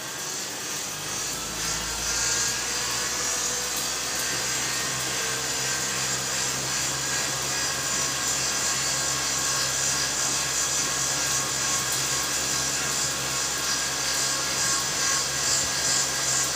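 Cotton candy machine's electric motor and spinner head spinning up, its pitch rising over the first few seconds, then running steadily while it spins sugar floss.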